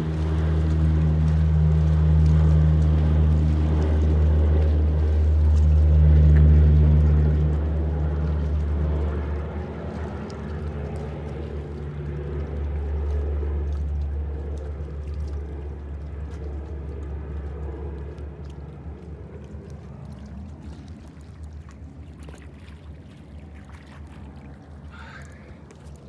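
Engine and propeller drone of a firefighting water bomber skimming the lake to scoop water. It is a steady pitched hum, loudest about six seconds in, then fading as the plane moves off along the far shore.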